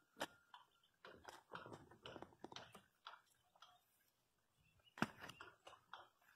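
Hand pruning shears snipping grapevine tendrils: faint sharp clicks, with a run of small crackly snips between about one and three seconds in and the loudest snip about five seconds in.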